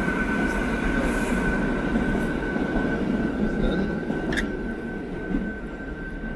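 New York City subway train rumbling along the rails with a steady high-pitched whine, the rumble slowly fading away. A short click about four seconds in.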